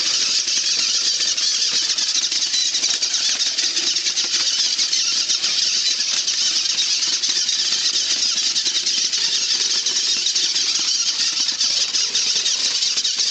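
Battery-powered RC rock crawler driving over rocks: its electric motor and gears run steadily, with a dense crackle of the tyres and chassis grinding on stone.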